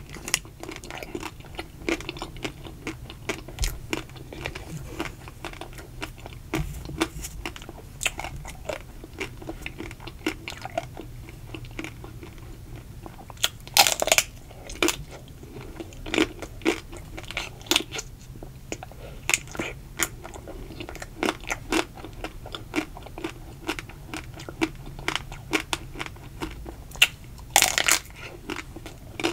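Close-miked eating of a ruby chocolate-coated ice cream bar: the thin chocolate shell cracks and crunches under bites, with chewing in between. Two louder cracking bites stand out, about halfway through and near the end.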